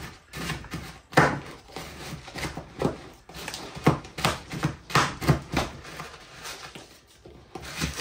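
Bird-seed mix of sunflower seeds and corn being stirred and pressed together in a container: irregular rustling, crunching and knocking, several small hits a second.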